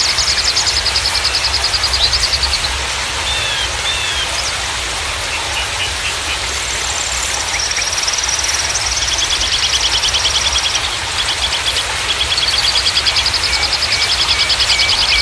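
Steady rush of running water with a low rumble. Over it, small songbirds give rapid high trills in phrases of a few seconds, with scattered short chirps.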